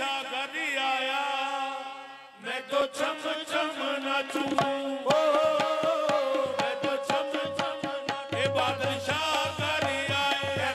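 Qawwali music: a held, wavering melody, then tabla strikes entering after a short lull about two seconds in, under a long sustained note.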